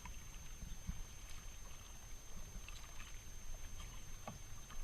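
Kayak being paddled on a river: faint paddle splashes and water sounds over a low rumble.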